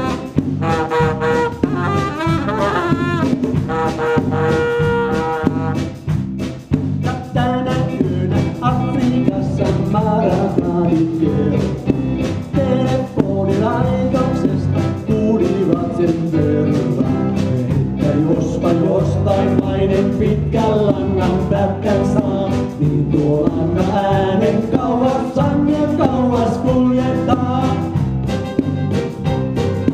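A live band playing jazzy music with electric guitar, bass and drums: a saxophone plays over the band for the first few seconds, then stops about six seconds in, and a man sings with the band while playing keyboard.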